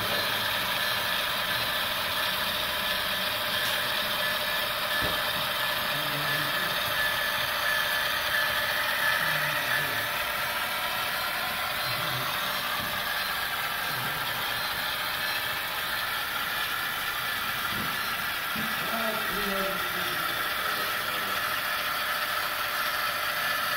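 HO-scale model diesel locomotives running along the track: a steady mechanical whir of their motors and gears, with the wheels rolling on the rails.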